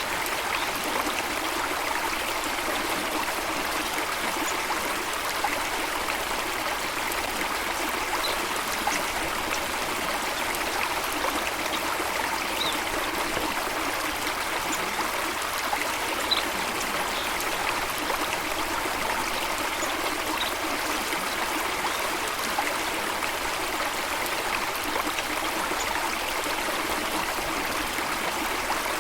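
Steady flowing water with a constant rushing sound, and a few faint, short, high bird chirps.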